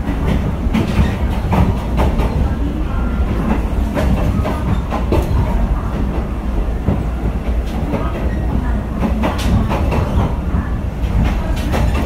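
Inside a Philippine National Railways passenger coach on the move: a steady low rumble of the wheels on the track, with irregular clicks and knocks from the rail joints and running gear.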